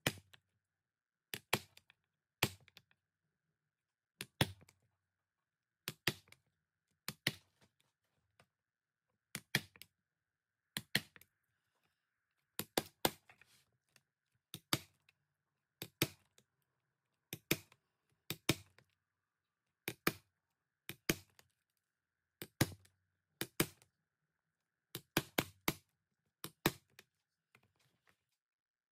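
Mallet striking a leatherworking tool such as a stitching chisel or punch through leather: sharp knocks with a dull thud under them, often two in quick succession, repeated about once every second or so with short pauses.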